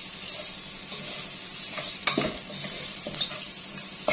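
Chicken, onions and spices sizzling steadily as they fry in a pot, stirred and scraped with a wooden spoon that knocks against the pot a couple of times.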